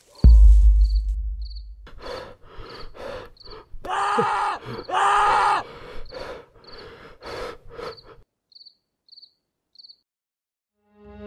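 Horror sound effects: a deep boom at the start, crickets chirping about twice a second, a run of soft beats, and two drawn-out moaning groans about four and five seconds in. It then falls quiet.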